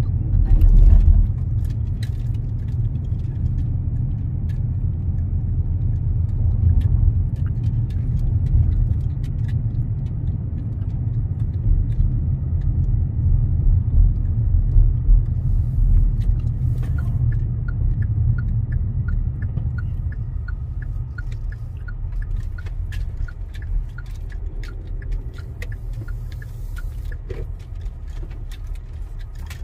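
Car-interior road noise: a steady low rumble from the tyres and engine while driving. About halfway through, a turn-signal indicator starts ticking about twice a second and keeps going for roughly ten seconds.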